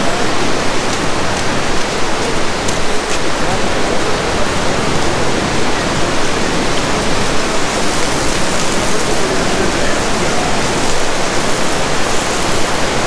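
Fast-flowing Mandakini River, a steady, loud rush of white water.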